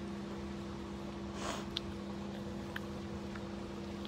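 Steady electric hum of a pump running, which the girl takes, not quite sure, for the pool's filter pump, with a brief rustle about a second and a half in and a few faint clicks.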